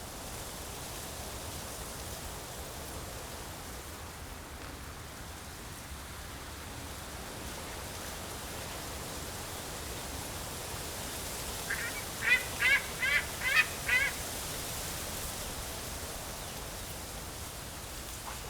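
A quick series of about six short yelping calls from a white-tailed eagle, over steady wind noise.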